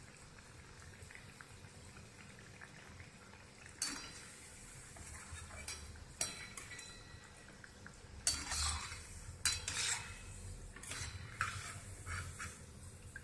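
Perforated steel slotted spoon scraping and clinking against an iron kadhai as fried vadi are lifted out of hot oil, with a faint sizzle of the frying oil underneath. Several separate scrapes and clinks, the longest and loudest about two-thirds of the way in.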